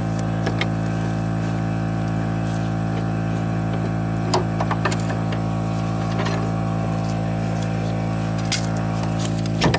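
A steady mechanical hum throughout, with several scattered light metallic clicks and knocks as the coilover strut is worked down into the lower control arm fork.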